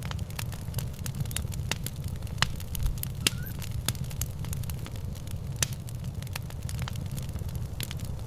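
Wood fire crackling, with sharp pops at irregular intervals over a steady low rumble.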